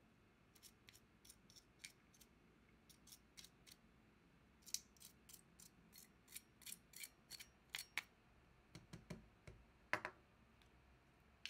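Faint, irregular small clicks and scrapes of a safety pin picking at the inside of an opened Logitech Pebble M350 mouse's plastic shell, with a louder, duller knock near the end.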